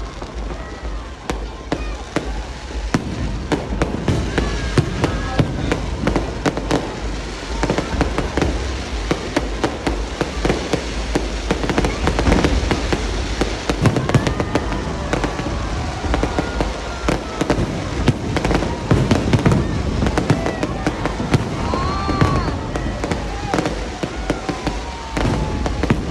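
Fireworks display: a dense, unbroken run of bangs and crackling.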